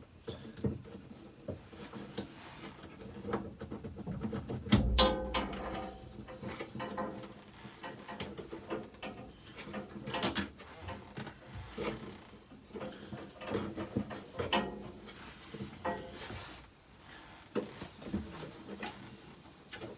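Irregular clicks, knocks and rubbing of hand work with tools on the Land Rover's metal parts, with a louder knock about five seconds in and another about ten seconds in.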